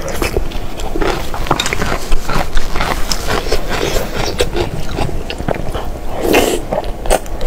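Close-miked eating sounds: wet chewing and biting of food, a dense run of short sticky clicks, with louder mouthfuls about a second in and again after six seconds.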